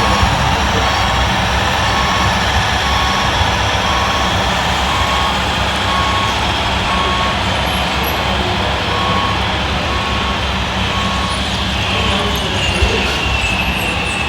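RC model truck's sound module playing a diesel engine running, with a reversing beeper beeping about once a second. A higher whine comes in near the end.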